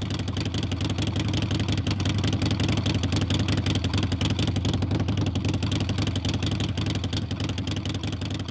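Harley-Davidson Sportster 883's V-twin engine running with a steady, rapid pulsing exhaust, building slightly louder at first and fading off near the end.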